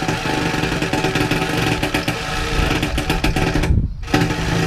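Reciprocating saw (Sawzall) running and cutting into a metal pole, its blade stroking rapidly. It cuts out briefly near the end, then starts again.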